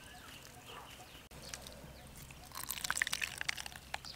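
Wet grated coconut squeezed by hand over a metal mesh strainer, with coconut milk dripping and trickling through it. The wet squelching and splattering gets louder from about two and a half seconds in.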